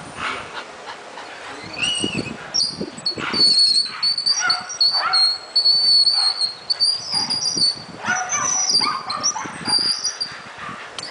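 Bull Terrier whining and yipping in excitement, with repeated high-pitched squeals, while it jumps at and hangs by its teeth from a rope tug toy.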